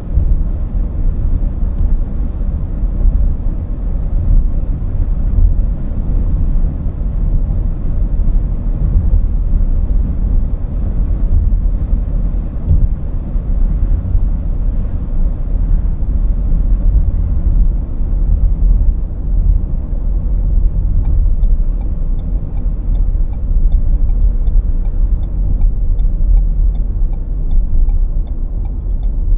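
Steady low rumble of road and engine noise inside a moving car's cabin. About two-thirds of the way through, a faint regular ticking starts up, about two ticks a second.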